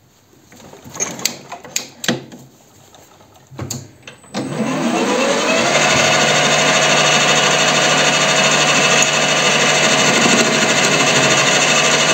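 A WM210V benchtop metal lathe: a few knocks and clicks, then about four seconds in the spindle motor starts, its whine rising over a second or so and settling into a steady, loud run as the chuck spins.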